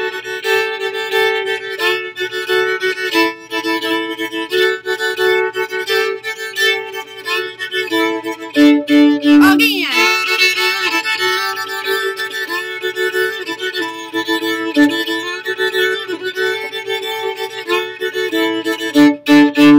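Violin playing the accompaniment to a beginner open-string fiddle tune: rhythmic bow strokes on open strings, often two strings sounding together, with a quick slide in pitch about halfway through.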